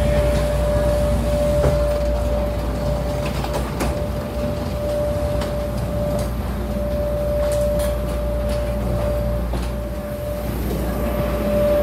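Steady machinery drone with a constant high whine from the jet bridge and the parked airliner's ground equipment, with scattered footsteps and light knocks from passengers and a roller bag moving down the bridge.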